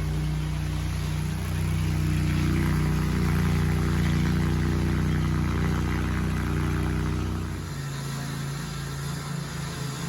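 An engine running steadily, a low even hum; about three-quarters of the way through it changes to a lighter, thinner hum.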